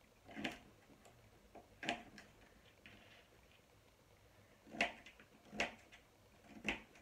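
Kitchen knife chopping a carrot into cubes on a plastic chopping board: about five sharp knocks of the blade against the board, at irregular intervals, the loudest about five seconds in.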